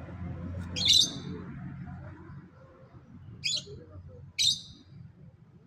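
A parrot giving three short, harsh screeches: one about a second in, then two close together later on. A low background rumble fades away under them.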